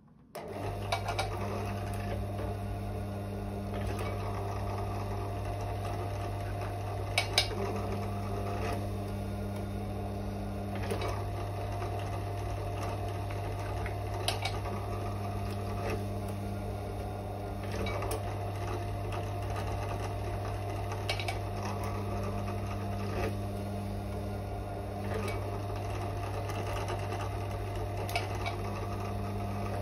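Bench drill press switched on about half a second in, its electric motor then running with a steady hum. A few brief clicks sound over it, the sharpest about seven seconds in.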